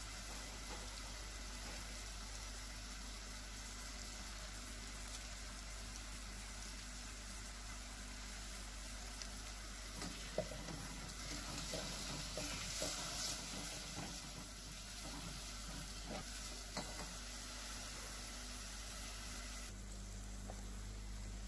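Diced apples sizzling in syrup in a stainless steel pan, a steady hiss. From about ten seconds in they are stirred, with scraping and a few clicks against the pan for several seconds.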